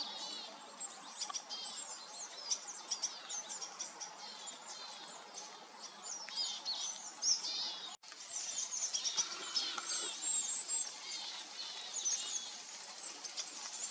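Tits and other small woodland birds twittering, a dense run of short, high, thin calls over a faint background hiss, with a momentary dropout about eight seconds in.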